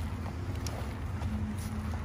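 An idling engine's steady low hum, with one light tick about two-thirds of a second in.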